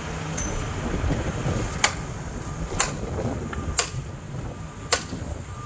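Construction truck engine running with a steady low rumble, with four sharp clicks about a second apart through the middle.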